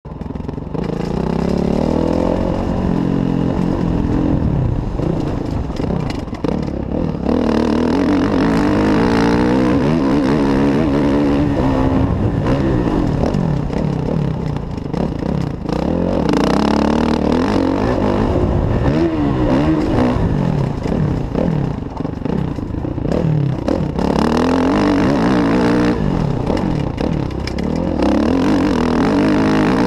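Kawasaki KX450F motocross bike's single-cylinder four-stroke engine running hard round a dirt track. Its pitch rises and falls again and again as the rider opens and closes the throttle through the corners and straights.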